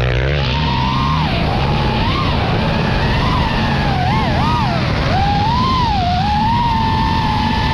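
FPV racing drone's motors and propellers whining, the pitch swooping up and down as the throttle changes, over a low rumble.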